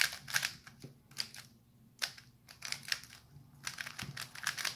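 Magnetic YuXin Little Magic M 3x3 speedcube being turned fast during a solve: quick irregular runs of plastic clicks and clacks as the layers snap into place.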